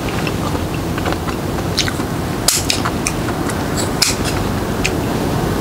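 Kitchen scissors cutting up cooked baby octopus: irregular sharp snips and clicks of the blades, with a louder one about halfway and another a little later, over a steady low rumble.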